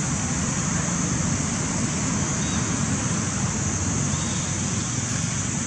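Steady outdoor ambience: a constant high-pitched insect drone over a low, even rumble like distant road traffic.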